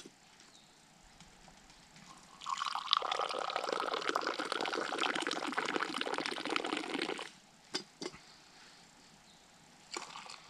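Tea poured in a long stream from a metal teapot held high, splashing steadily for about five seconds from a couple of seconds in. Two light knocks follow, one shortly after the pour stops and one near the end.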